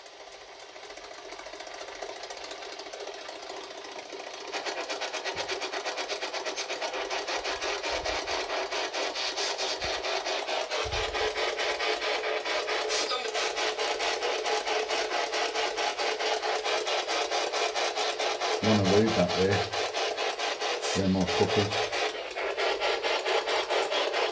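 Radio-sweep spirit box played through a speaker: harsh static chopped into rapid pulses, building over the first few seconds and then running steadily. Late on, two brief voice-like fragments a couple of seconds apart break through the static.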